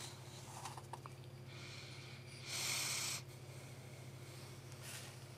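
Quiet courtroom microphone feed: a steady low hum, with one short burst of hiss, under a second long, about two and a half seconds in.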